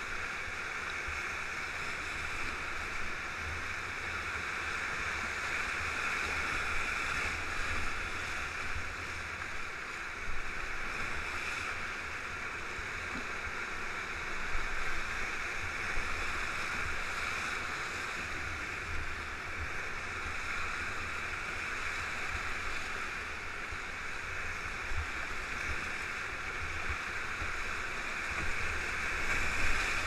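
Whitewater rapids rushing steadily around an open canoe, heard from aboard, with a few brief louder splashes.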